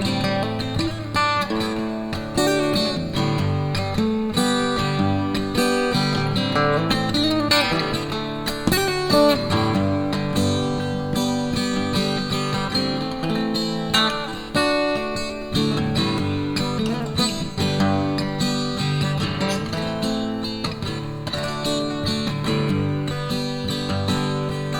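Instrumental break in a song: acoustic guitar strummed and picked, with other backing instruments.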